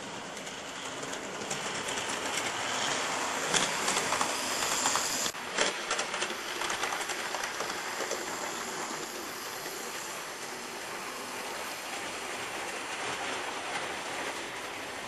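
Model train running on the layout: a steady electric-motor whirr with fine rapid clicking of the wheels over the track. The sound breaks off abruptly about five seconds in and picks up again at once.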